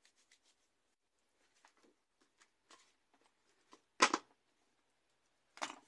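Scattered faint rustles and small taps as craft materials are handled on a table. There are two louder short clatters, one about four seconds in and one near the end, like tools or objects being set down.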